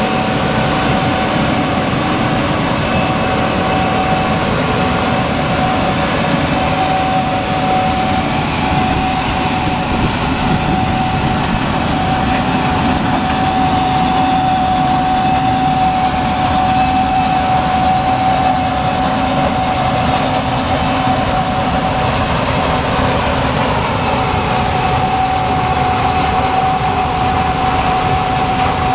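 Gleaner S98 combine harvester running steadily while harvesting corn: a constant low rumble with a steady high whine over it.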